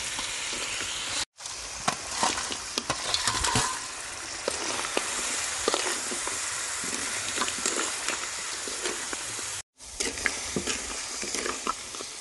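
Rice field crab and long beans stir-frying in a hot pan: steady sizzling with the clicks and scrapes of a spatula stirring. The sound cuts out briefly twice, about a second in and near the end.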